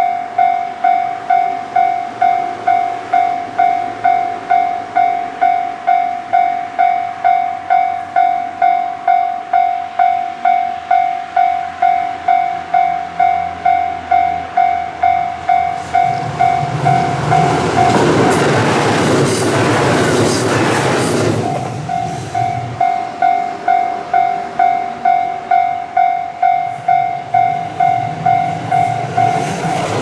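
Japanese level-crossing warning bell ringing its steady electronic ding at about one and a half strokes a second. About sixteen seconds in, a train runs past over the crossing, its rumble and wheel noise covering the bell for several seconds before the bell is heard again.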